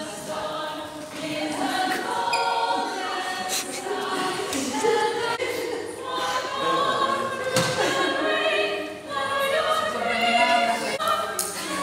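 A group of voices singing together, many parts overlapping in a choir-like sound.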